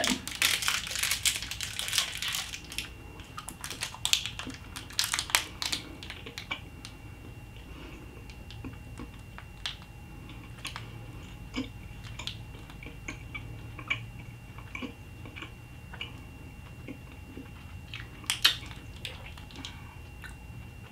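Small candy wrapper crinkling for the first few seconds as a piece of sour gum is unwrapped. Quiet chewing of the gum follows, with scattered small crackles from the wrapper in the hands and a short flurry of them about 18 seconds in.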